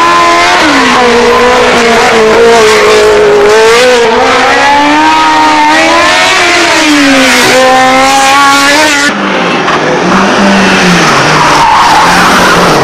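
Race car engines at full throttle on a tarmac rally stage. An open-cockpit sports prototype's engine note climbs and drops over and over as it accelerates, shifts and brakes through the corners. At about 9 s it cuts abruptly to a Renault 5 rally car with a lower engine note and tyre noise as it corners.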